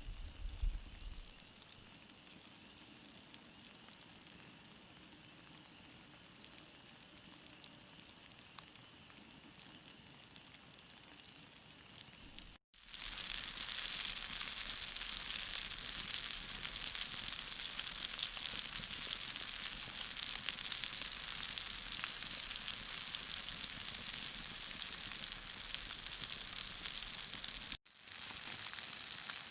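Breaded northern pike fillets frying in hot oil in a small frying pan, a steady sizzle. It is faint at first, then becomes much louder and brighter after a sudden cut about 13 seconds in.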